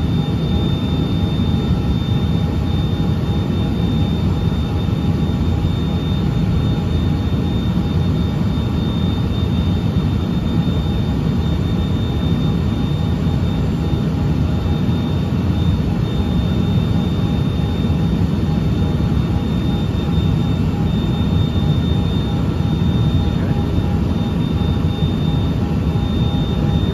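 Steady cabin noise of a Cessna Citation XLS business jet in the climb: a dense low rumble of airflow and its rear-mounted Pratt & Whitney Canada PW545 turbofans, with a thin high whine held steady above it.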